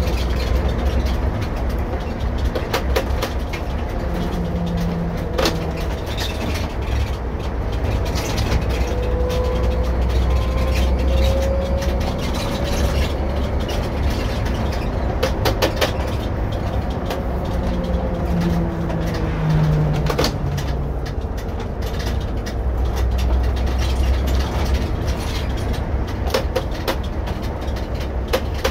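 Irisbus Récréo II coach with a ZF EcoMat automatic gearbox driving, heard from inside the cabin: a steady low engine and road rumble, the engine note rising and falling, with scattered rattles and clicks.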